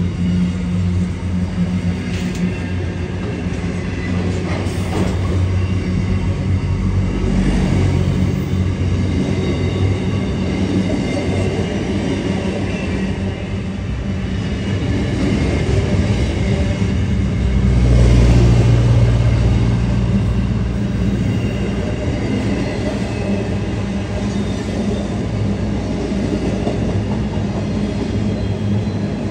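Container freight train's wagons rolling past, a steady rumble of steel wheels on rail that swells for a couple of seconds about eighteen seconds in.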